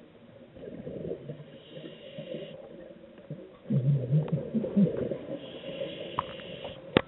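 Underwater sound picked up by a camera resting on the sandy seabed: a low gurgling rumble, loudest about halfway through, with faint hissing and a sharp click near the end.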